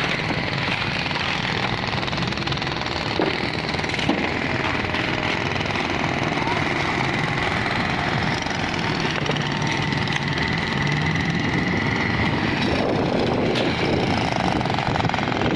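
Electric jackhammer breaking up old road asphalt: a continuous, rapid hammering, with a few sharper knocks.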